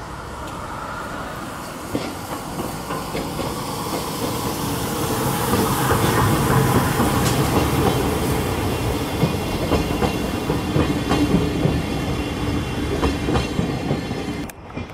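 C11 steam tank locomotive hauling two passenger coaches slowly past at close range, with wheel clicks and running noise that swell as the coaches draw level and then ease off as the train moves away. The sound cuts off abruptly near the end.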